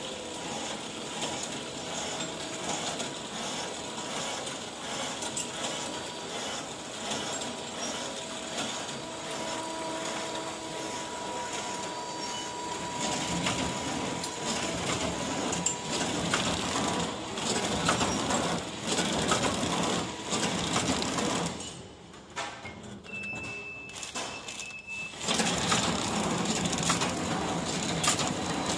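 Automatic horizontal flow-wrapping machine running: steady mechanical clatter and whir from its infeed conveyor and sealing mechanism, with scattered clicks. About 22 seconds in it drops quieter for a few seconds, with a short steady high tone, then the machine noise comes back louder.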